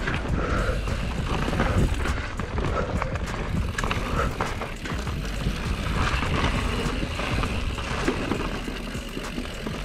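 Enduro mountain bike ridden over a rough dirt singletrack: continuous tyre noise over leaves and roots, with many sharp rattles and knocks from the bike over bumps and a low wind rumble on the microphone.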